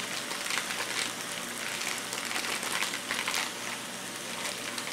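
A plastic pouch of creamed spinach crinkling as it is squeezed out by hand over a skillet, while ground chicken and spinach sizzle steadily in the pan.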